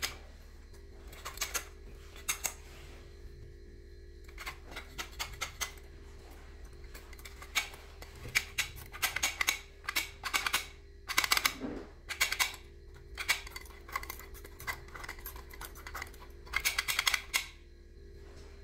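Metal clicking and clacking in irregular clusters from an old rim lock being handled and worked by hand, its key and bolt parts rattling.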